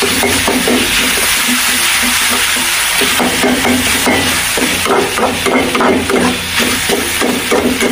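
Spring roll vegetable filling frying and being stirred in a pan: a steady sizzle with repeated short knocks.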